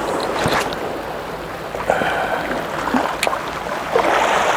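Seawater washing and lapping at the shore, with a louder surge near the end and a couple of sharp clicks.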